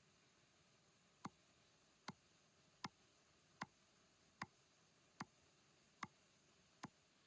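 Eight short, sharp taps at an even pace, a little under a second apart, over near silence.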